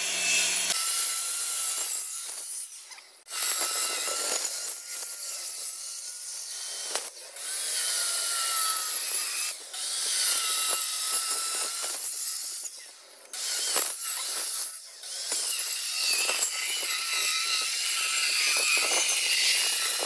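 A handheld electric cutter with a small circular blade runs and cuts grooves into a wooden board. It makes a wavering whine over a hissing rasp of the blade in the wood, and drops away briefly several times.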